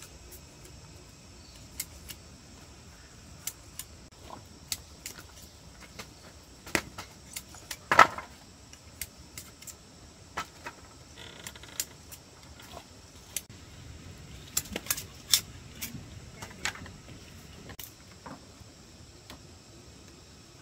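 Irregular light clicks and knocks from handiwork, with one louder knock about eight seconds in.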